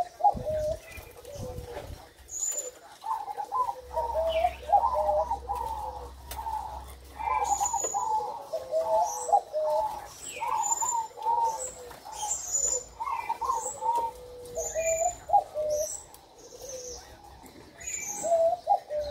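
A male zebra dove (perkutut, gong type) cooing phrase after phrase with quick rising notes. Its song is blurred and rushed because the bird is over-aroused, as the keeper puts it. Short high chirps from small birds sound above it.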